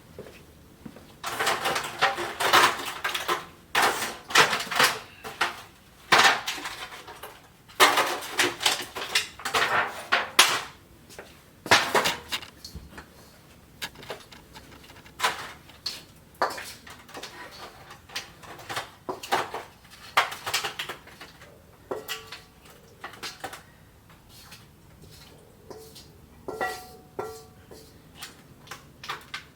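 Serving utensil clattering and scraping against a pot and plates as food is dished out: irregular clinks and scrapes, busiest in the first half, with a brief ringing clink near the end.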